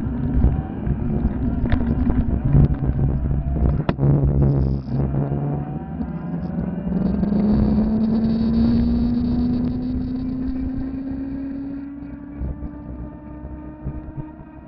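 Electric fatbike's 250 W, 48 V motor whining under acceleration, its pitch rising steadily over several seconds as the bike gains speed. Wind buffeting and road rumble on the bike-mounted microphone, with a sharp knock about four seconds in.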